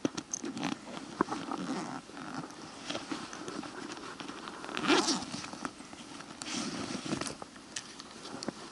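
Rustling and handling noise close to the microphone, from clothing and gear moving, with scattered small clicks and one louder rustle about five seconds in.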